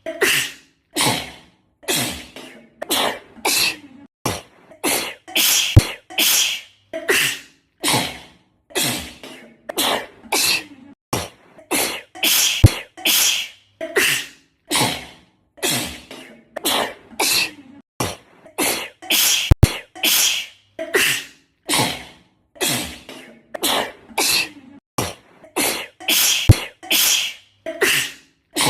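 A girl's sneezing fit: one sharp, breathy sneeze after another, a little over one a second, edited into a loop so that each sneeze is cut off into short silent gaps.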